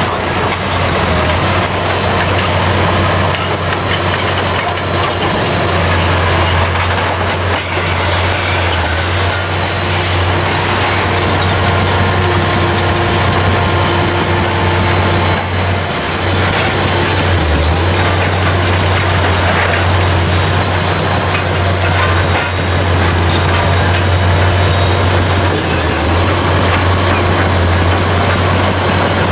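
Large Liebherr hydraulic crawler excavator's diesel engine running steadily under working load, a deep continuous drone with dense hydraulic and machine noise over it and a few faint knocks.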